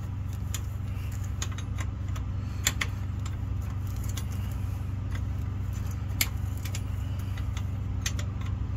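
Scattered light metal clicks of a wrench loosening the clamp bolt on a truck's air brake chamber, over the steady low hum of an idling engine.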